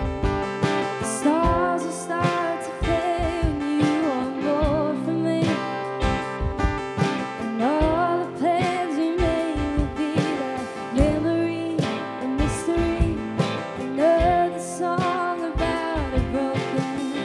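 A woman singing a song over a strummed acoustic guitar.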